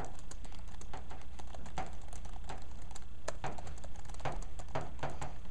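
Chalk on a chalkboard: a run of quick, irregular taps and short strokes as lines and letters are written.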